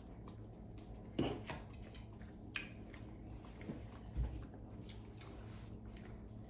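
Eating sounds: chewing and biting, with a few short clicks and taps about one, two and a half and four seconds in.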